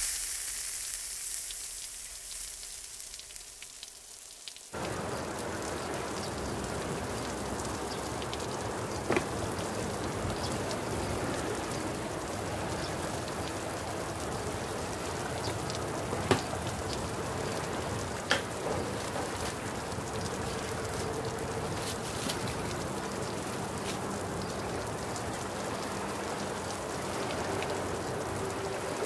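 Steady hiss like falling rain that starts abruptly about five seconds in, broken by three sharp clicks.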